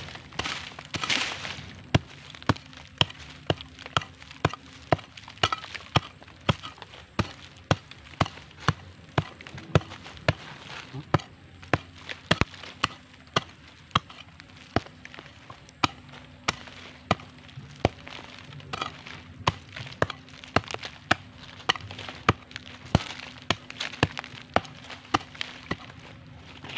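A small metal hand hoe chopping into earth and leaf litter, with sharp strikes at about two a second, digging out a metal-detector signal.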